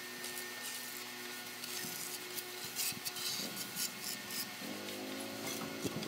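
Steel plastering trowels scraping and smoothing sand-and-cement mortar on a brick arch in short rasping strokes. A faint steady hum runs underneath, and a low steady droning tone comes in near the end.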